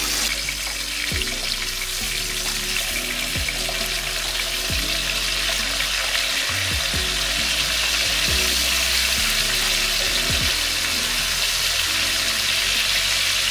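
Chicken thighs sizzling steadily in hot oil in a skillet as they brown.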